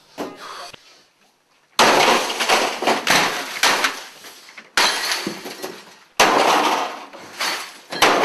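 Sledgehammer blows smashing things, glass among them: a light knock at the start, then three loud crashes about a second and a half apart. Each crash is followed by shattering and falling debris that dies away.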